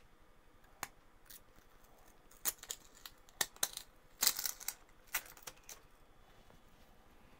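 Protective backing film being peeled off the new adhesive on a replacement tablet digitizer glass: a quiet run of dry crackles and clicks, loudest about four seconds in.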